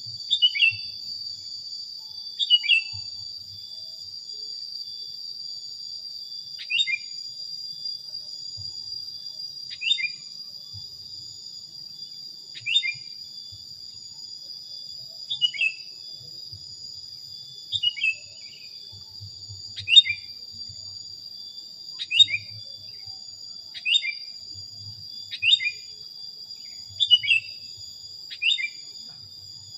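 Sooty-headed bulbul (kutilang) singing short phrases of two or three quick descending notes, repeated about every two to three seconds. A steady high-pitched insect drone runs underneath.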